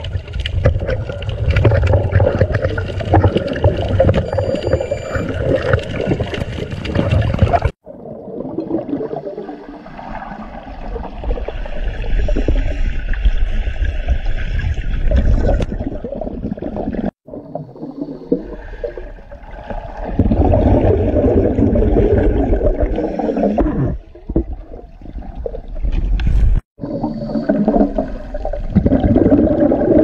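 Muffled underwater sound picked up by a camera below the surface: a continuous rushing, gurgling water rumble. It breaks off abruptly several times and starts again.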